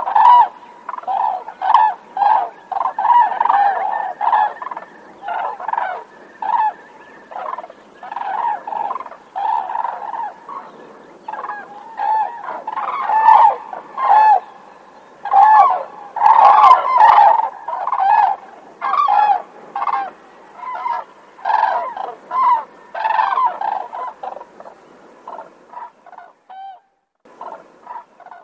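Grey crowned cranes giving a long run of short honking calls, about one or two a second, thinning out and growing fainter in the last few seconds.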